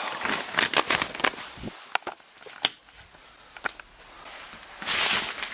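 Clicks and knocks of a hotel room door being unlocked, opened and handled, a rapid run of them at first and then a few single sharp clicks, with a short burst of rushing noise about five seconds in.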